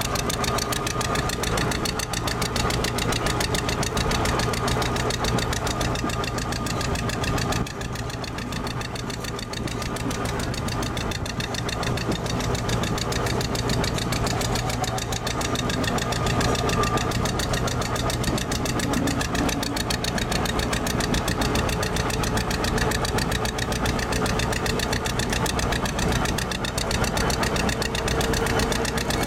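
Small diesel locomotive's engine running steadily under load, a rapid, even clatter heard from its open footplate. The sound dips briefly about eight seconds in, then picks up again.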